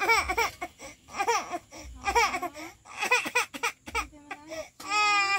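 A young child laughing and babbling in short high-pitched peals, with a longer held squeal near the end.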